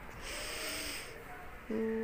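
A woman laughing out in a breathy huff through her nose, then a short held hum of her voice near the end.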